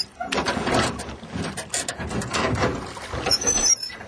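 Oars or paddles of a small rowboat knocking and creaking as it is rowed, with a short high squeak a little past three seconds in.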